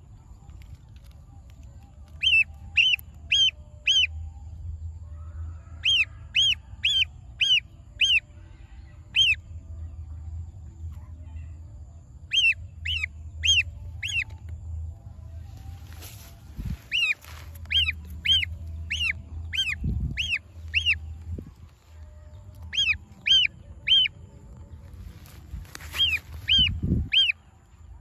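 Gosling peeping in quick runs of three to six short, high peeps, about three a second, with each run repeated every few seconds. A few dull low thumps sound underneath in the second half.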